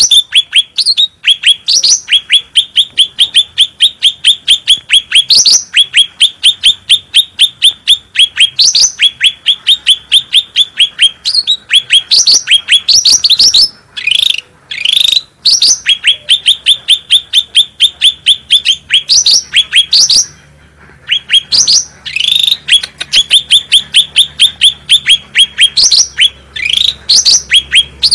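Cucak rante singing vigorously: long runs of rapid, sharp falling notes, about five a second, mixed with occasional higher rising notes and broken by a couple of brief pauses.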